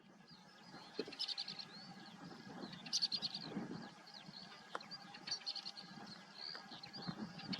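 Northern wheatear singing: short, scratchy phrases of clicks and quick whistled notes, coming in bursts about every two seconds.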